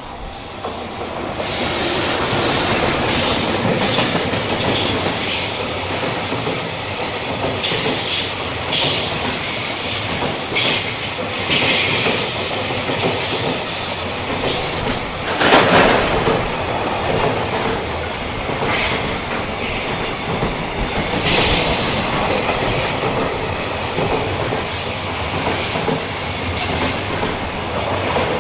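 JR Freight container train hauled by an EF210 electric locomotive passing close by: a continuous rumble and clatter of wheels over rail joints, with brief high-pitched wheel squeals. The noise builds over the first two seconds as the locomotive arrives, and a loud clatter comes about halfway through.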